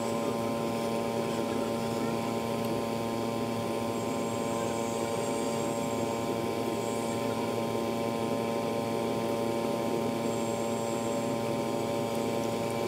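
A steady electrical hum made of several fixed tones over a faint hiss, unchanging throughout.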